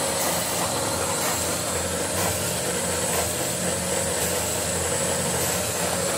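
Horizontal drilling machine running steadily while its bit bores a row of holes into the wooden edge of a cricket bat, with faint knocks about once a second as each hole is cut.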